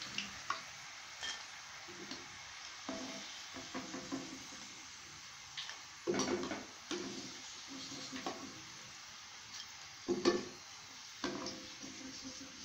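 Potato slices frying in hot oil with a steady sizzle, while a perforated metal skimmer repeatedly scrapes and clinks against the pan and plate as the fried chips are lifted out.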